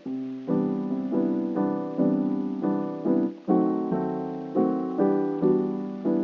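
Background lofi music led by soft electric piano chords, struck in a steady pulse about twice a second and each fading before the next.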